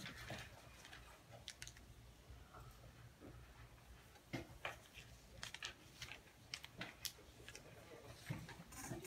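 Near silence: room tone with a faint low hum and scattered faint clicks and taps.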